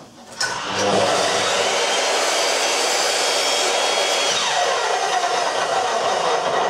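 Evolution compound mitre saw running, its motor starting up about half a second in and the blade cutting a 45-degree angle through MDF picture rail moulding. A loud, steady whine, with a falling tone partway through.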